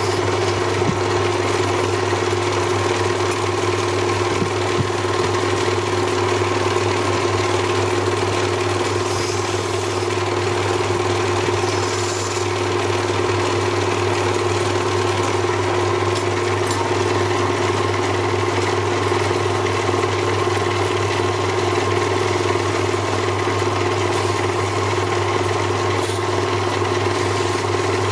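A small lathe running at a steady speed, an even machine hum that does not change, while a hand-held cutting tool turns an undercut in a spinning ebonite pen part, with a few brief high scraping sounds from the cut.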